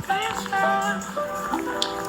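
Background pop music with a high, gliding vocal melody over a steady low note.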